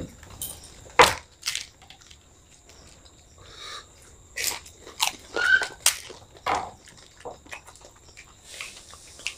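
Phuchka (pani puri) shells being bitten and chewed: scattered crunches and mouth sounds, with several close together between about four and seven seconds in.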